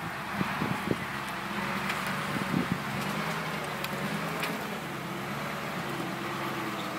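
Engine of a 6x6 off-road truck running steadily at low speed as it crawls over rough ground, with a few knocks in the first second.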